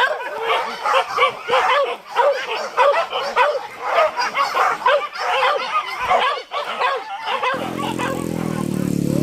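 Hunting dogs yelping and baying in rapid, overlapping high yips, several a second. Near the end the sound cuts abruptly to a steady engine running.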